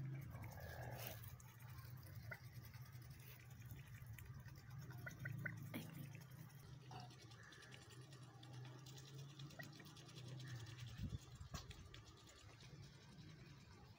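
Faint rapid clicking and smacking of a white domestic duck's bill dabbling food out of a person's cupped hand, over a steady low hum.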